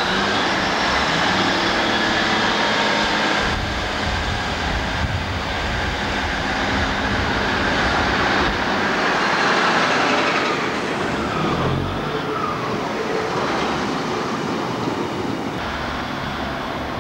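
British Rail Class 150 Sprinter diesel multiple unit moving close alongside the platform: underfloor diesel engines running over the rumble of wheels on rail. It eases a little in loudness after about twelve seconds as the unit draws away.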